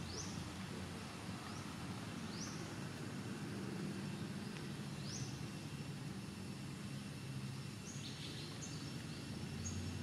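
Outdoor ambience: a steady low rumble with a bird giving short rising chirps every two to three seconds, and a few quick high notes near the end.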